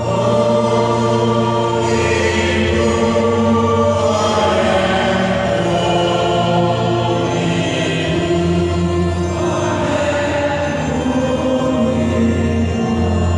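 A congregation's many voices singing and chanting together over sustained church music with long held chords and a steady bass.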